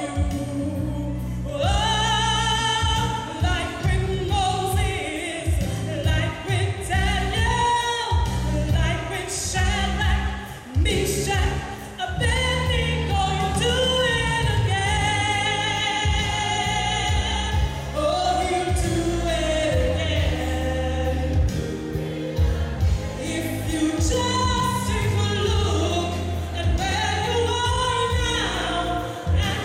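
A woman singing a gospel song into a microphone, holding notes with vibrato, backed by a live band with keyboard, drums and a steady bass.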